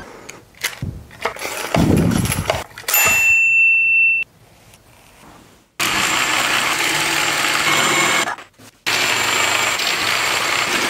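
Knocks and thumps of workshop handling, then a power tool running in two bursts of about three seconds each, starting and stopping abruptly at the trigger.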